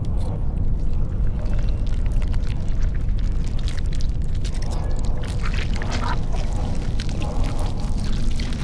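Sink drain gurgling and bubbling with irregular crackles over a deep, steady rumble.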